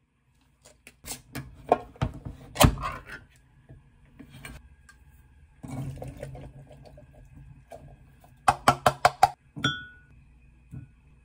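Clanks and clinks of a can of sweetcorn being opened and tipped into a stainless steel mesh sieve over a pot. Near the end the sieve is knocked against the pot in a quick run of about six taps to shake off the liquid, followed by a short metallic ring.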